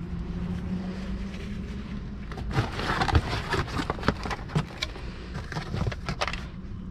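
Cardboard box and plastic yogurt cups rustling, knocking and scraping as they are handled, a rapid run of clicks and scrapes from about two and a half seconds in, over a steady low hum.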